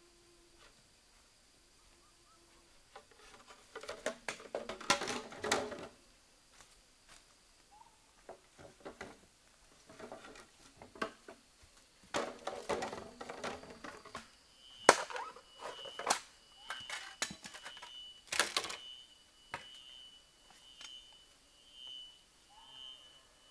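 Bamboo poles handled on leaf-littered forest ground: two spells of rustling and clattering, then a few sharp knocks of wood on wood. In the second half a high-pitched chirp repeats about once a second.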